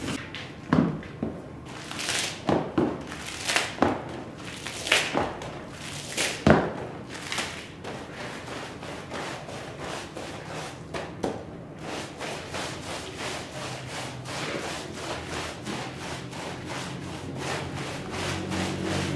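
Stiff brushing or scraping strokes on a heavily soiled rug, uneven with a few harder knocks, then from about twelve seconds in a quick steady rhythm of about three strokes a second.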